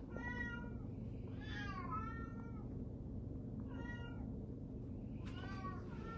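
Domestic cat meowing, about five short meows spread through a few seconds.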